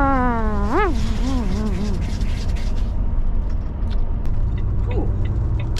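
Steady low rumble of a Volvo lorry's engine and road noise inside the cab. For the first two seconds, a man's voice does a wordless, sing-song vocalisation that swoops up and down in pitch.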